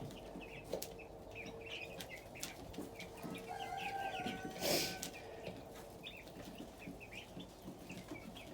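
Ducklings peeping, with many short high calls scattered throughout, and a brief rustle a little past the middle.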